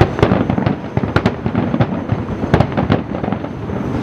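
Aerial fireworks bursting in a rapid, irregular run of bangs and crackles, the sharpest cracks coming in clusters about a second in and again about two and a half seconds in.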